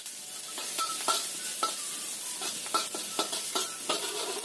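Minced garlic sizzling in a few spoonfuls of hot oil in a wok while a spatula stirs it, scraping and clinking against the wok repeatedly, about twice a second.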